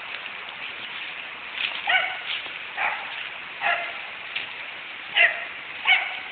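A dog barking: about five short, sharp barks between two and six seconds in, over a steady background hiss.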